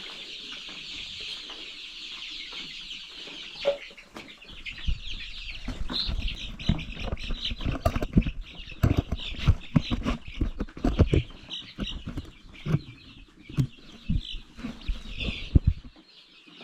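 A flock of chickens calling and clucking together in a steady chorus. From about four seconds in, irregular knocks and bumps close to the microphone are louder than the flock.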